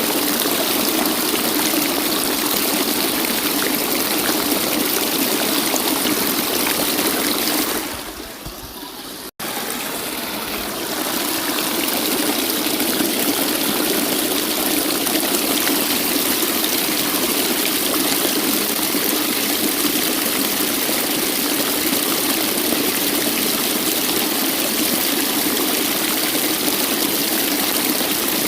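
Waterfall: a steady rush of falling water. About eight seconds in it fades down and drops out for an instant, then comes back at full strength.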